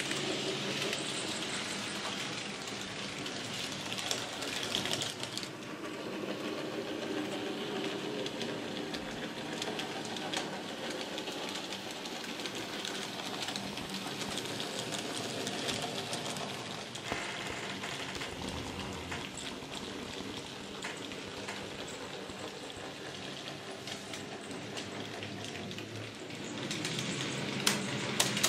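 Model trains running on a layout: a steady whirr of locomotive motors and wheels rolling over the track, with a few sharp clicks near the end.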